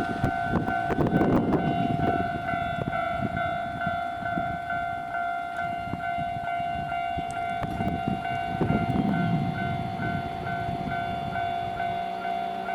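Japanese level-crossing warning bell ringing steadily in a quick, even pulse, while a Nankai Main Line train passes over the crossing: the rumble and wheel clatter swell about a second in and again around nine seconds in.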